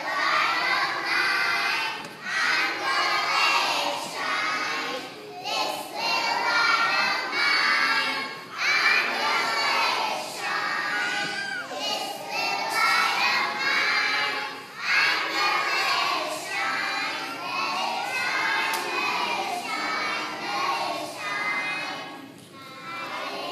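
A group of preschool children singing a song together in short phrases, with brief breaks every couple of seconds.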